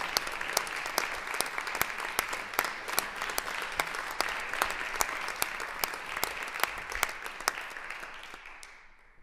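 Audience applause, a dense patter with some single sharp claps standing out, dying away over the last second or so.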